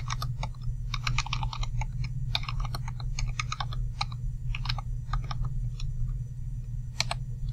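Computer keyboard keys tapped in quick irregular runs, typing numbers into a calculator, over a steady low hum.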